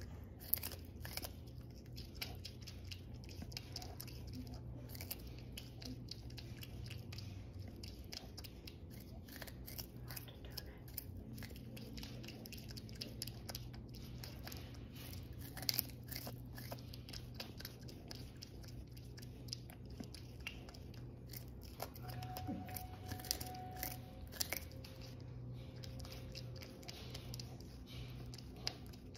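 Prehensile-tailed porcupine gnawing kernels off an ear of corn on the cob: a rapid, continuous run of small crisp crunches and clicks from its teeth, over a steady low hum.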